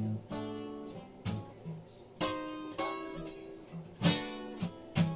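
Acoustic guitar being played: strummed chords alternating with picked bass notes, each chord ringing out between strokes.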